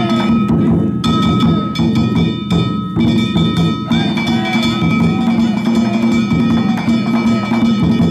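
Danjiri float's narimono (festival music) playing: a taiko drum beating a steady rhythm under clanging hand-struck gongs whose ringing tones carry over it. The gongs break off briefly twice.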